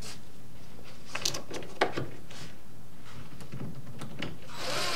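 A few sharp handling clicks and knocks about a second in, the loudest near two seconds in, then a cordless drill starts up near the end and runs steadily, driving a screw into the cabinet.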